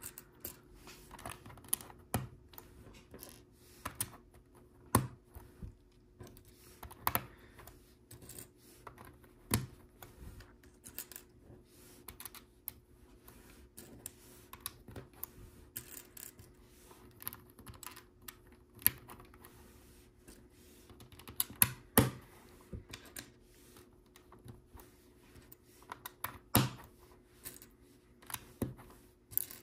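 Small plastic LEGO pieces clicking, clattering and being snapped together by hand, in irregular bursts of light ticks with a few louder snaps.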